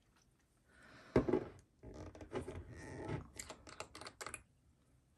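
Small objects and foil packaging handled on a tabletop: a knock about a second in, then a quick run of clicks and rustles.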